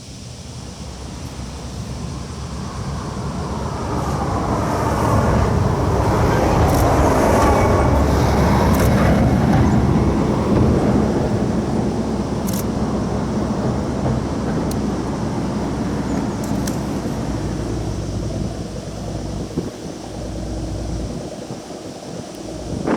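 A vehicle passing by: a rumbling noise swells over several seconds, peaks about a third of the way in, then slowly fades away.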